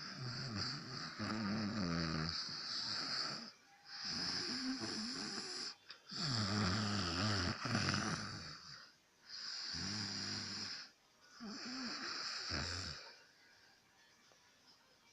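A man snoring in his sleep: a run of about five snores, one every two to three seconds, stopping near the end.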